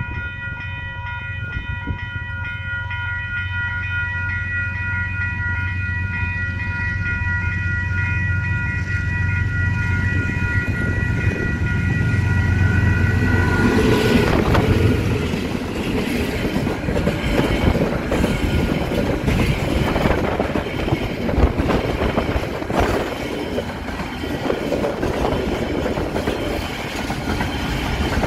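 Two KiwiRail DXR-class diesel locomotives approach under power, their deep engine drone growing louder until they pass about halfway through. Freight wagons then clatter and knock over the rail joints. Level-crossing alarm bells ring over the approach.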